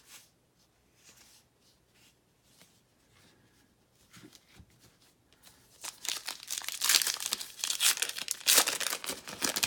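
A trading-card pack wrapper being torn open and crinkled by hand. It is faint handling at first, then loud, dense crinkling and tearing from about six seconds in.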